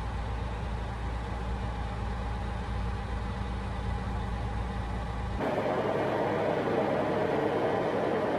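Inside the cab of a Freightliner Inspiration semi truck on the move: a steady low diesel engine drone with an even hum. About five seconds in it cuts abruptly to a louder, even rushing road and wind noise.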